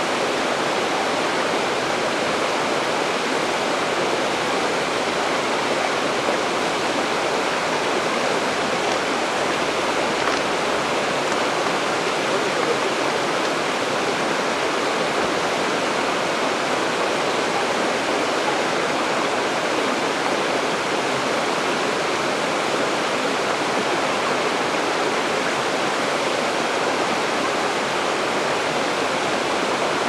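Waterfall pouring down onto rock: a steady, unbroken rush of falling water.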